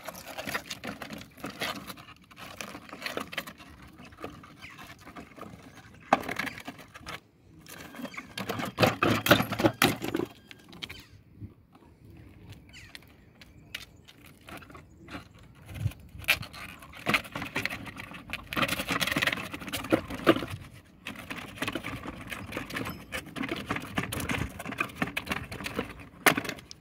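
Small remote-controlled wheeled rover climbing concrete stairs: bursts of its drive running, with its wheels and deck knocking and scraping against the step edges, broken by short quieter pauses.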